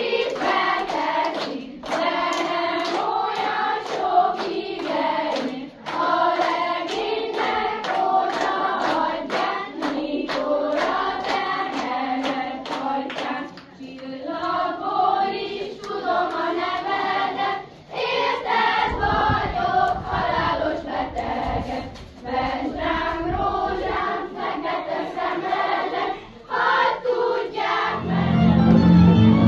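A group of voices singing a song together, with sharp rhythmic beats about twice a second. Near the end a string band with fiddle starts playing.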